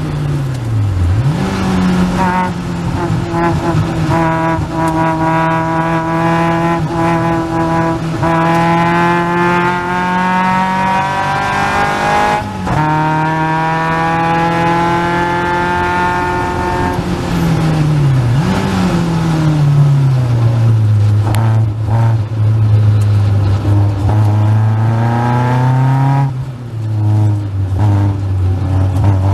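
Caterham Seven's 2.3-litre Ford Duratec four-cylinder engine at racing speed. It revs up hard and long, with a gear change about twelve seconds in and a further climb, then the revs drop under braking, with a quick blip of a downshift partway through the fall, and run lower and steadier through the next stretch.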